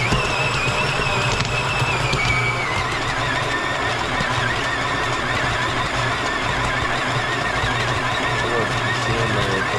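Electric mixer kneading stiff bread dough: a steady motor whine over a low hum, dropping in pitch about two seconds in and then wavering as the dough works the motor.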